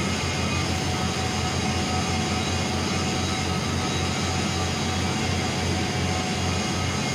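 TIG (gas tungsten arc) welding on steel plate: a steady electric buzz and hiss from the arc and the welding machine.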